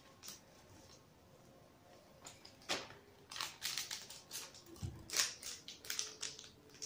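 A small plastic packet being opened by hand, crinkling and rustling in irregular crackles that start about two seconds in, with a soft low bump a little before the end.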